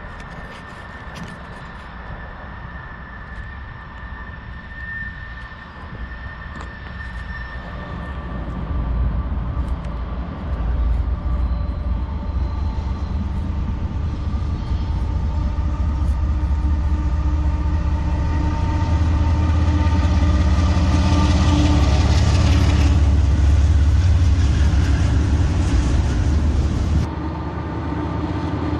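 Freight train of covered hopper cars rolling past, joined by an oncoming diesel freight locomotive on the next track drawing near and passing beneath: a deep rumble of engine and wheels that builds from about eight seconds in and is loudest near the end, with steady engine tones over it. The sound drops suddenly just before the end.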